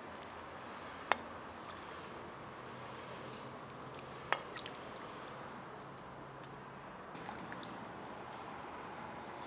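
A metal ladle scooping meat broth from a cast-iron cauldron and pouring it into a bowl, with liquid sloshing and a steady hiss underneath. The ladle clicks sharply twice, about a second in and again about four seconds in.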